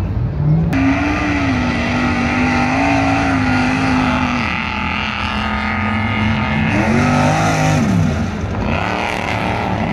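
Off-road pickup truck's engine revving hard on a sand course: the pitch climbs sharply just after the start and holds high, drops off about four and a half seconds in, then revs up and falls away again around seven to eight seconds.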